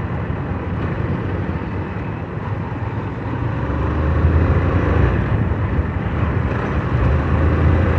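Motorcycle under way: the engine running steadily with road and wind noise, getting a little louder about halfway through.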